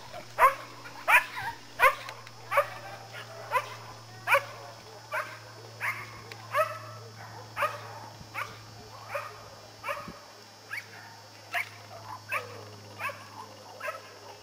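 A dog barking over and over, about one short bark every two-thirds of a second, each bark falling in pitch; the barks grow fainter toward the end.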